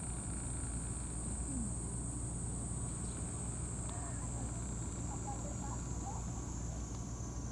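A steady, high-pitched insect drone, slowly dropping a little in pitch, over a low steady rumble, with a few faint short chirps around the middle.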